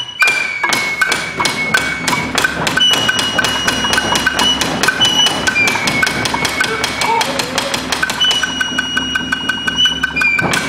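Nagauta hayashi accompaniment for Japanese dance: a bamboo flute holds high, piercing notes that change pitch every second or two, over a fast, even run of sharp wooden-sounding percussion strikes.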